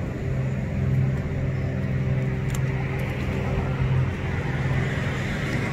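A motor vehicle engine idling: a steady low hum that eases slightly about four seconds in.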